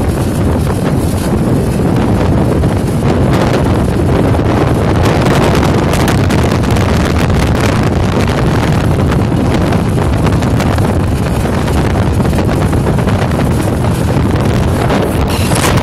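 1999 Palm Beach Whitecap 20.3 boat running at speed, its outboard motor under way with the wake rushing behind. Wind buffets the microphone in a steady, loud roar that masks most of the engine's tone.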